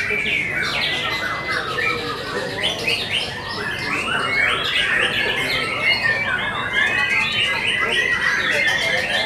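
White-rumped shama (murai batu) singing: a rapid, unbroken run of varied whistled notes.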